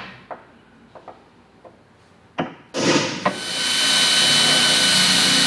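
A few faint taps and handling knocks, then about two and a half seconds in a Makita cordless drill starts and runs steadily with a high whine. Its 1–2 mm bit is drilling a crack-stop hole into the aluminium hull of a boat.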